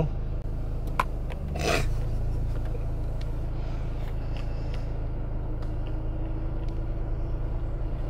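Car engine idling steadily, heard from inside the cabin. A sharp click comes about a second in, and a brief rustle follows just after.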